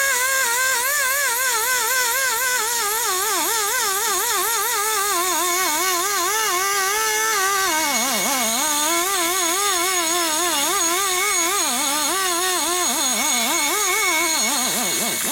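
Die grinder cutting in the port of a Harley-Davidson Twin Cam cylinder head. Its high whine wavers up and down as the cutter bites and eases off, dips sharply about eight seconds in and again near the end, with a steady hiss behind it.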